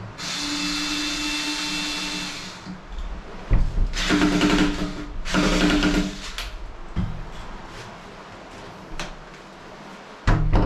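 Power drill running in three bursts: one of about two and a half seconds, then two shorter ones about four and five seconds in, with a click between. It is being used for a repair on a toilet door lock.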